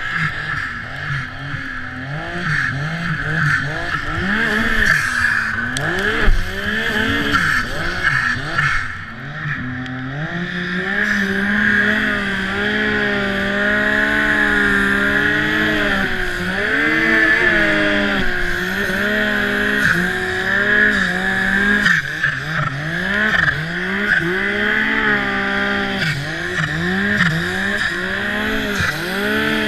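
Turbocharged Yamaha SR Viper M-TX snowmobile's four-stroke three-cylinder engine revving up and down as the throttle is worked under load in deep powder, over a steady hiss.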